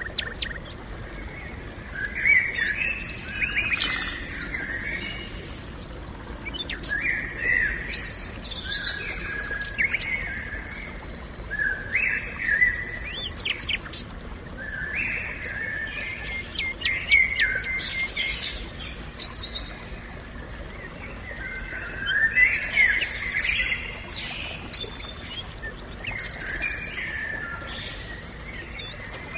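Songbirds singing: repeated short warbled phrases every few seconds, with chirps and trills, over a steady low background hiss of forest ambience.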